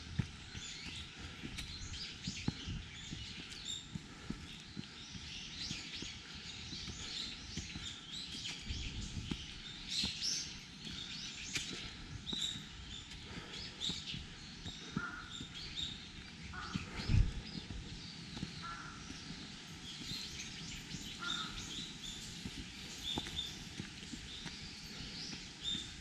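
Many wild birds chirping and calling without a break, with short, lower calls repeating every couple of seconds in the second half. Soft footsteps run underneath, with one louder thump about two-thirds of the way through.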